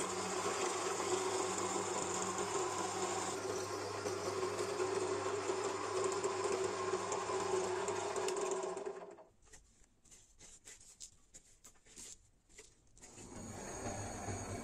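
Drill press running, its bit drilling into a brass and copper kettle at the lid-hinge tab, with a steady motor hum; it stops about nine seconds in. A few light clicks follow, then a gas blowtorch starts a steady hiss near the end.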